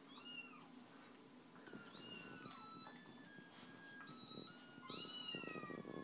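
A cat-meow phone ringtone playing faintly: about three recorded meows, the last one longer and falling in pitch, mixed with short steady electronic notes.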